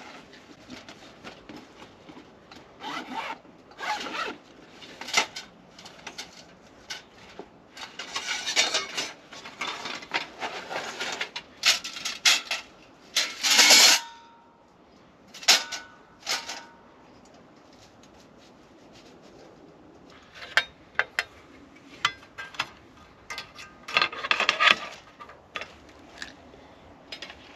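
Rummaging in a kit bag: fabric rustling and scraping, a long zip-like rasp, and scattered knocks and clinks, with one brief metallic ring, as camp-cooker parts are handled and unpacked.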